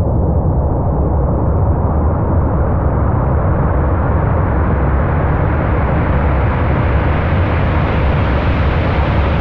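Heavy rushing water with a loud, deep rumble. It starts muffled and grows steadily brighter, then cuts off suddenly at the end.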